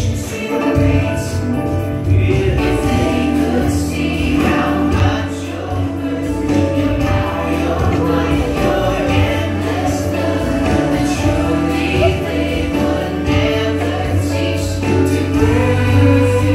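Gospel song with a choir singing over a steady beat and a strong bass line.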